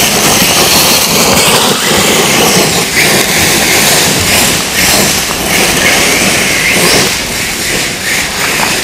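XRAY 808e 1/8-scale brushless electric buggy on a 5S LiPo, driven hard on loose dirt: a motor and drivetrain whine that rises and falls with repeated bursts of throttle, over the hiss and crunch of the tyres on dirt and gravel.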